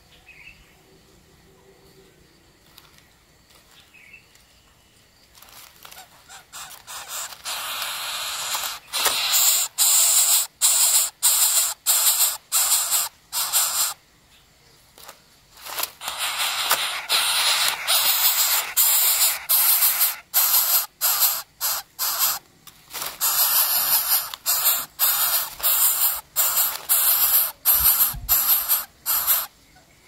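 Coucal chicks in the nest giving harsh, hissing begging calls. The calls begin softly about six seconds in and grow into loud, rapid rasping bursts, with a short break midway.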